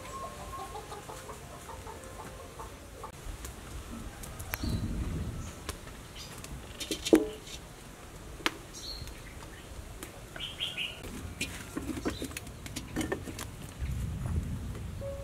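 Backyard ambience of birds chirping and chickens, broken by a few sharp knocks, the loudest about seven seconds in.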